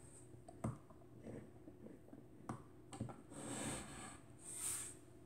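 Small mechanical clicks from the controls of a SEMFlex Oto 3.5B twin-lens reflex camera as it is worked by hand, three sharp clicks in all. Near the end come two brief rubbing swishes as the camera is handled and turned.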